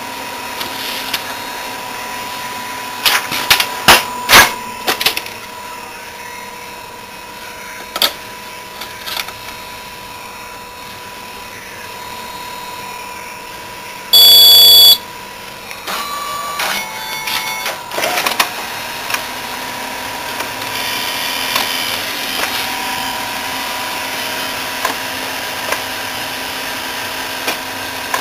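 Xerox A-Color 935 colour copier running with its covers off: a steady high whine under scattered mechanical clicks and knocks, the loudest cluster about three to four seconds in. About halfway through, a loud electronic beep sounds for about a second. From about two-thirds of the way on, the drive runs with a steadier mechanical noise.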